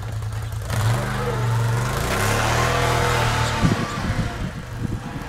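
Four-wheeler ATV engine revving as it pulls away, over a steady engine drone. The noise swells about a second in and eases off near the end.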